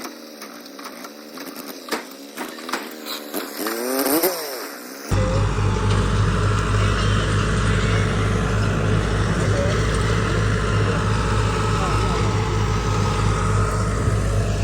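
Faint voice-like sound for about five seconds, then a sudden change to a tractor-driven straw-chopping thresher making tudi from harvested wheat straw, running loud and steady with a deep drone and a faint high whine.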